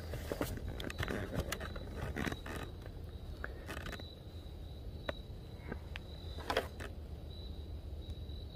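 Handling noise from a camera being moved and repositioned: scraping and rustling for the first few seconds, then a few separate clicks, over a faint steady high-pitched tone.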